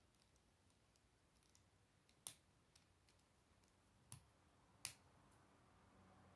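K'nex plastic rods and connectors being snapped together by hand: scattered faint clicks and three sharper snaps, about two, four and five seconds in.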